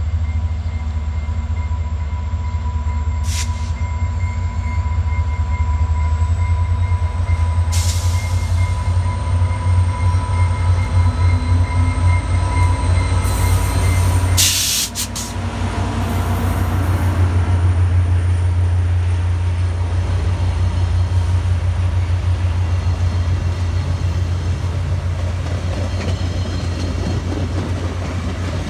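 VIA Rail F40PH-3 diesel-electric locomotive, with its EMD two-stroke diesel, hauling a passenger train out of a station. Its engine rumbles loudly with a steady high whine as it approaches and passes about halfway through. The passenger coaches then roll past, their wheels clattering on the rails.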